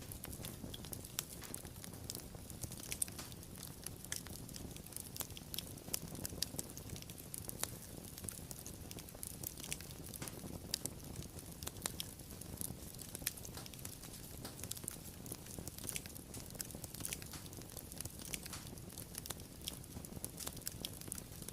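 Wood fire burning, with frequent sharp, irregular crackles and pops over a low, steady rumble of the flames.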